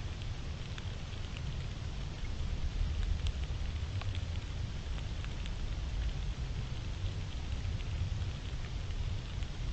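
Outdoor night ambience on a trail camera's microphone: a steady low rumble and hiss, with scattered faint ticks.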